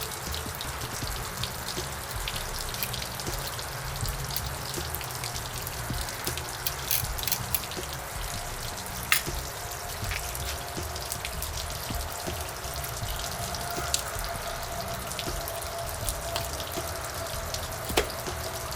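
Scattered small clicks and taps of hand tools on outboard motor parts, over a steady hiss.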